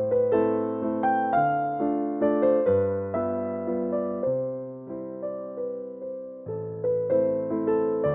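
Background piano music: a slow, gentle melody of struck notes that ring and fade over held bass notes.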